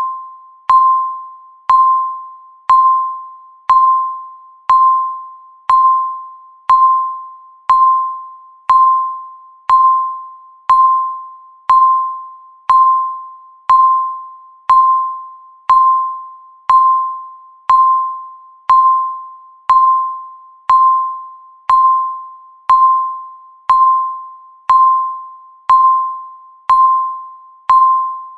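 Countdown timer's electronic beep sounding once a second, steady and regular. Each beep is a single mid-pitched tone that starts sharply and fades away before the next.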